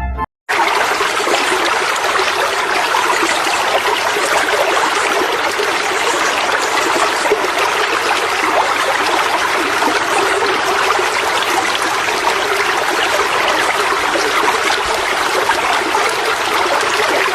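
Steady rush of running water, starting abruptly about half a second in and holding even throughout.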